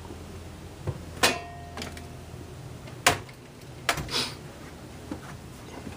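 Scattered knocks and clicks of handling and moving about, about six of them over a low steady hum. The loudest comes a little over a second in and rings briefly after it.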